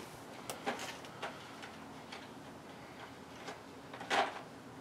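Light scattered clicks and clinks of metal sockets and tools being handled while a socket is sought out, with a louder clink about four seconds in.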